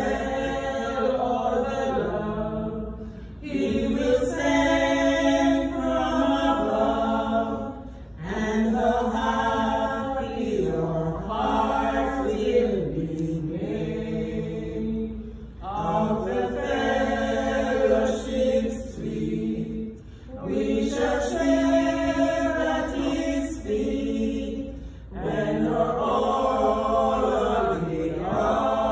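A small group of women singing a hymn together, in sung phrases of about four to five seconds with short pauses for breath between them.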